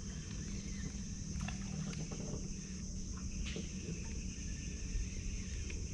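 Ryobi Ultra Power 1000 spinning reel being wound in steadily, a low whir with a few light clicks, over a steady high-pitched drone in the background.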